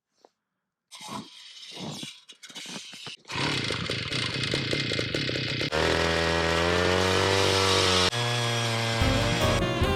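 A powered ice auger running and drilling, with an uneven, rising and falling mechanical noise that starts about a second in. About six seconds in, a jazz music track with saxophone takes over.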